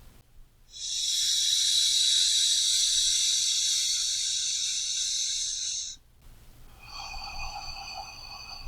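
A person breathing slowly and deeply as a relaxation exercise: one long, loud breath lasting about five seconds stops abruptly, and a quieter, softer breath begins about seven seconds in.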